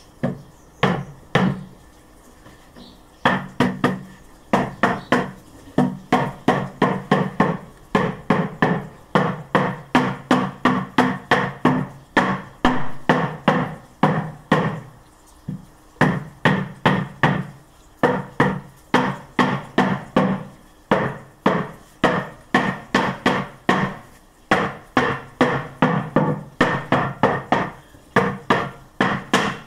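Rubber mallet wrapped in cloth tapping the wooden panels of a beehive kit to knock the joints home: runs of sharp knocks about three a second, with short pauses between the runs.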